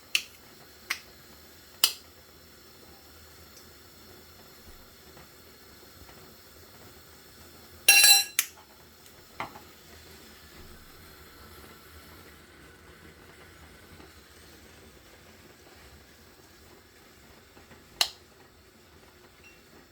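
Scattered clicks and clinks from seasoning containers and kitchen utensils being handled while a chicken is seasoned. About eight seconds in there is one louder, ringing clink, like glass or metal.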